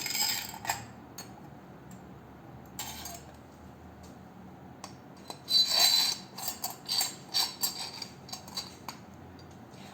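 Hard tabernacle parts clinking and rattling as they are handled and fitted over a long threaded screw: a few clicks near the start, one around three seconds in, then a quick run of clinks in the second half.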